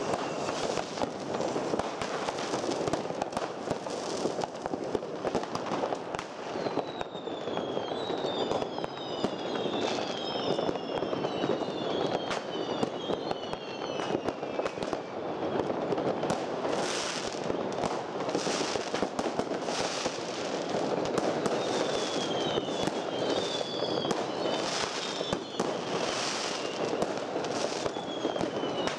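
Many fireworks going off at once: a dense, continuous crackle with frequent sharp bangs, and short whistles that fall in pitch, heard several times in clusters.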